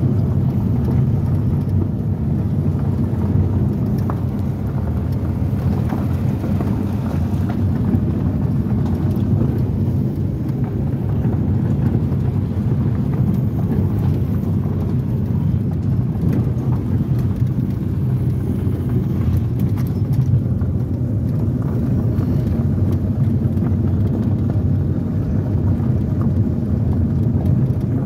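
Car driving along a gravel dirt road, heard from inside the cabin: a steady low rumble of engine and tyres, with scattered light clicks from the gravel.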